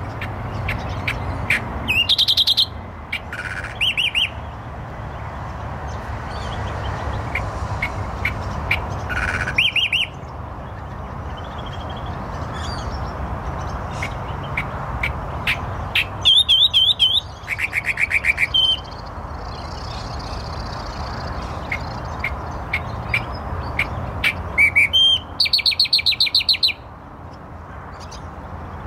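Australian reed-warbler singing in short bursts of fast, repeated high notes, several phrases with pauses between, over a steady low background rumble.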